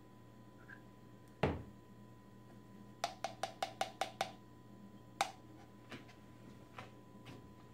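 A measuring spoon tapped against the rim of a plastic cup to knock the last of the honey off it: about seven quick taps in a second and a half, then a few single, fainter taps. A single dull knock comes first, about a second and a half in.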